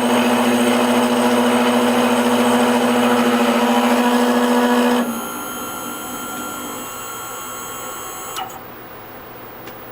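Small CNC machine's motor running with a loud, steady hum, cutting off about five seconds in; a fainter hum follows, ending with a click a few seconds later.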